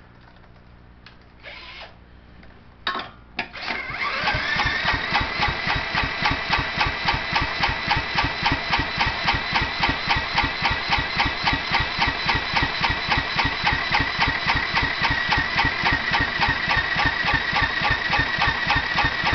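A few faint clicks, then about four seconds in an electric drill starts spinning a 1996 John Deere JX85 mower's Kawasaki FC150V 6 hp engine. It cranks steadily with a high drill whine and even compression pulses, about five a second, and the engine does not catch, which the owner blames on a rust-plugged carburetor.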